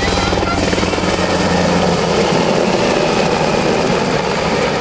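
HH-60G Pave Hawk helicopter flying past close by, its main rotor beating rhythmically over the turbine noise. The deep beat fades after about a second and a half as it pulls away, leaving a steady rushing rotor noise.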